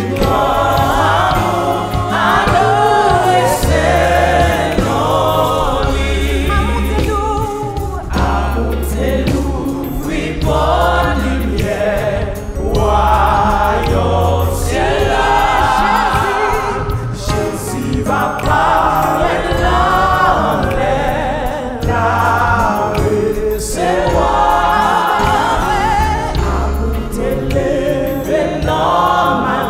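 Haitian Creole gospel song: a woman sings the lead into a microphone, with backing voices and a band playing deep held bass notes underneath.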